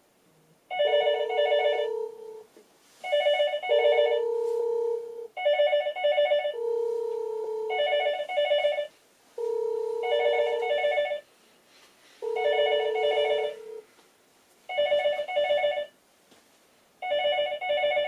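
Dahua VTH2421FW-P indoor monitor ringing for a call from its door station: an electronic ringtone of short trilled chime bursts, repeating about every two seconds. A second, steadier two-note tone overlaps the ringing and stops about 14 seconds in.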